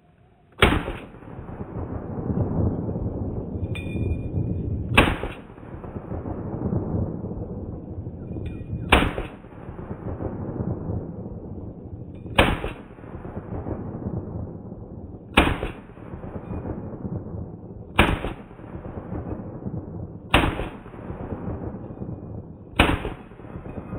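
M1 Garand semi-automatic rifle in .30-06 fired eight times, a full clip, at uneven intervals of about two and a half to four and a half seconds that shorten toward the end. Each shot is followed by a long rolling echo that fades before the next.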